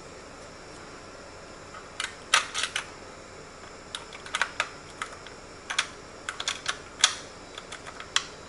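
Irregular sharp clicks and taps of small hard computer parts being handled, scattered over most of the stretch and loudest near the start and about two-thirds through.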